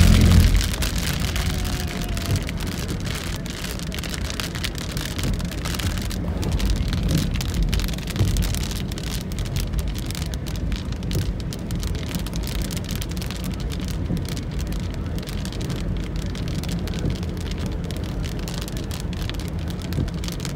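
Heavy rain falling on a moving car, heard from inside the cabin as a steady patter of many fine raindrop ticks over the low rumble of the car and its tyres on the wet road. A louder low thump comes right at the start.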